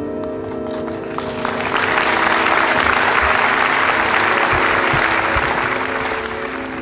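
An audience applauding, swelling about a second and a half in and fading away near the end, over sustained pipe organ chords.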